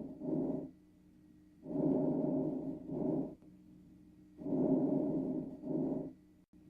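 Breath sounds heard through a stethoscope over an animal's chest. Each breath is a longer breathy rush followed at once by a shorter one, then a pause, repeating about every two and a half seconds. A faint steady hum runs underneath.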